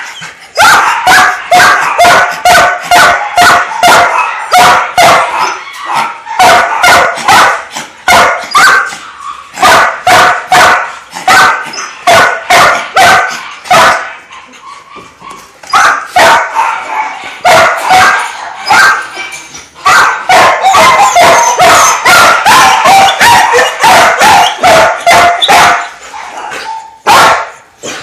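Many dogs barking at once in a shelter, a dense run of overlapping barks several a second, with a few short lulls.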